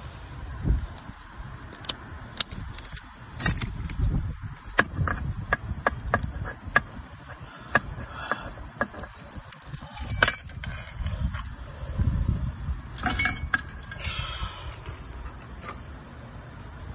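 Irregular clicks and light metallic clinks from hand work with roofing hardware and tools, over a low rumble.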